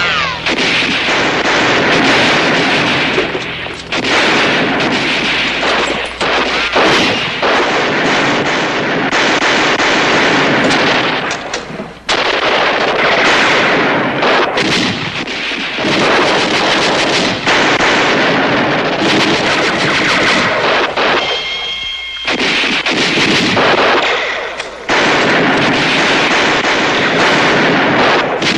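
Heavy, near-continuous gunfire from a war-drama soundtrack, many shots overlapping, broken by a few brief lulls.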